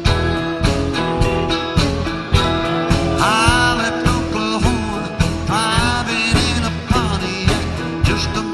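Live country band playing with a steady drum beat, bass and guitars; a lead line bends notes up and holds them, about three, five and a half and seven seconds in.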